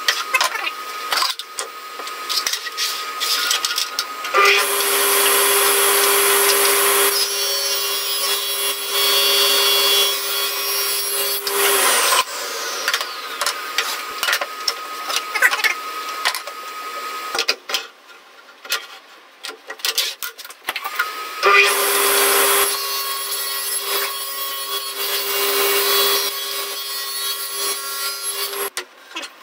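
Table saw run twice for cuts in wood board, each time for about seven seconds, from about four seconds in and again from about twenty-one seconds in until near the end; each run is a steady machine noise with a constant hum. Between the runs, boards are handled on the steel table, giving knocks, clicks and sliding.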